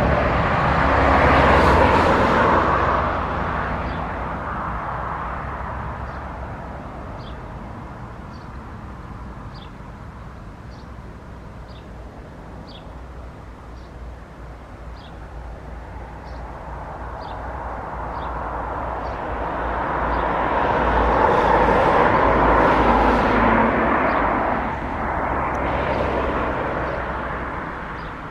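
Airbus A319 jet engines at taxi power as the airliner rolls slowly after landing. The engine noise is loud at first, fades for several seconds, swells again about twenty seconds in as the aircraft turns away, then falls off near the end. Faint regular high chirps, about one a second, come through in the quieter middle stretch.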